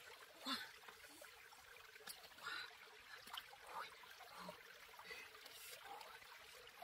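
Faint trickling water with scattered small, irregular clicks and splashes.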